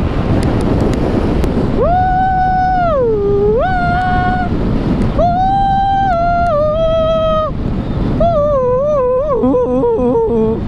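A voice sings wordless high notes in three phrases: a held note that slides down and back up, a second held note that steps lower, then a quick wavering run of notes. Steady wind and road noise from riding a motor scooter runs underneath.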